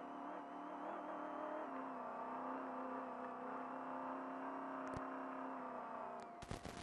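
Trophy truck's engine heard from inside the cab, running steadily at speed, its pitch dropping slightly about two seconds in. A dense rattling clatter starts up near the end.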